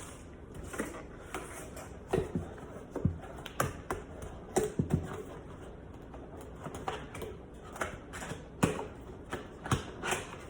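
Irregular light clicks, taps and knocks of cardboard packaging and small accessories being handled and set down, about a dozen in all.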